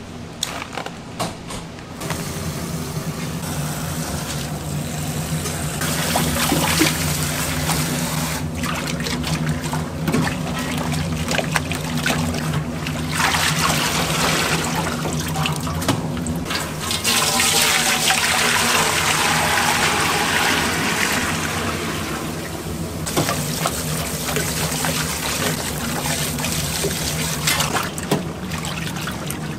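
Water running from a tap and sloshing in a stainless steel basin as hands knead and squeeze a cloth bag of barley malt, washing out the milky malt water for sikhye. It starts about two seconds in, after a few light clicks.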